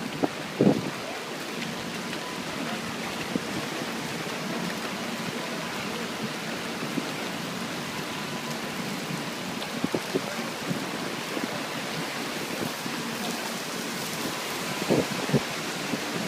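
Heavy rain falling steadily, a constant hiss, with a few brief thumps about half a second in, around ten seconds in and near the end.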